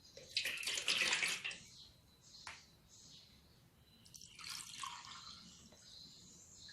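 Water being poured, measured out by the glassful for boiling: a loud splashing pour about half a second in lasting just over a second, a light click a second later, then a second, quieter pour at around four and a half seconds.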